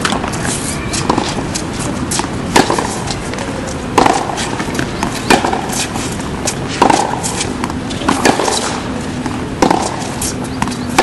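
Tennis balls struck by rackets and bouncing on a hard court, a sharp impact about every one and a half seconds, over a steady noisy background.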